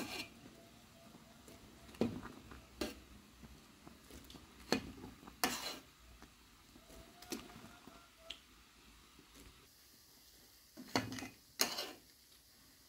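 Metal skimmer knocking and scraping against a metal pot as boiled dough dumplings are scooped out of the water and dropped into a plastic colander. The sharp clinks come singly, a second or two apart, with a pair close together near the end.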